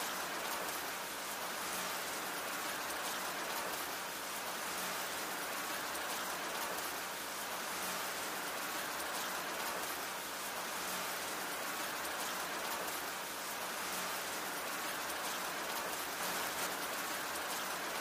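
Steady rain falling: an even hiss dotted with a fine patter of individual drops, unchanging in level.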